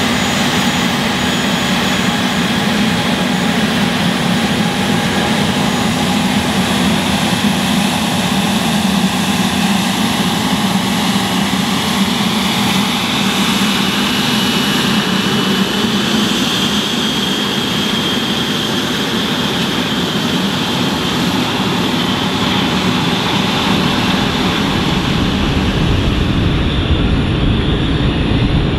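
Dassault Falcon 7X business jet's three rear-mounted turbofans running at taxi power: a steady jet whine over a low rumble, with a faint whistle that rises slightly in pitch about halfway through. Near the end the high whine fades and a deeper rumble takes over.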